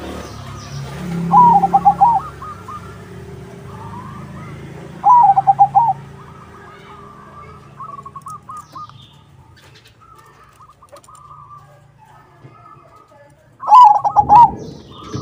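Zebra dove (perkutut) of the crossbred 'crossing' type singing: three loud phrases of quick trilled coos, about a second in, about five seconds in and near the end, with fainter coo phrases in between.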